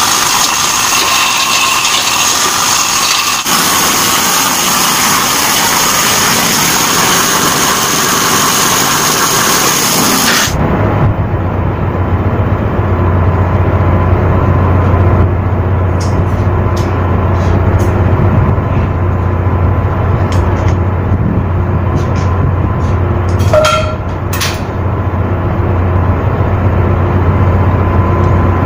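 Air-powered chipping tool running in a steady rattle on the steel gangway, knocking off rust. About ten seconds in it cuts off abruptly to wind rumble on the microphone and a steady low hum, with scattered light taps.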